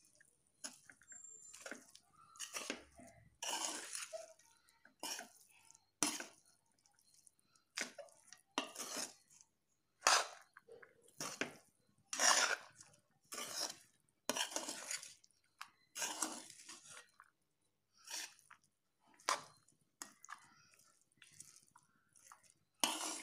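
Metal spatula scraping and scooping cooked rice in a pan as the rice is gently mixed in, in irregular strokes about once every second or so with short quiet gaps between.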